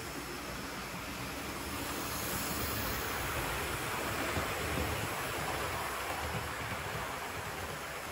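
Model railway train running on the track, a steady rumble of the wheels and motor on the rails that grows louder as the coaches pass close by about halfway through, then eases off.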